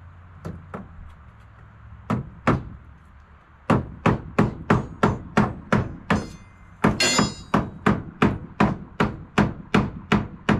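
Hammer striking at a wooden wall: a few separate taps, then from just under four seconds in a steady run of blows at about three a second. A couple of the blows give a brief metallic ring.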